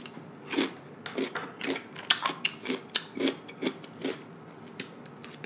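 Close-miked chewing of raw cucumber: crisp, wet crunches about two to three times a second.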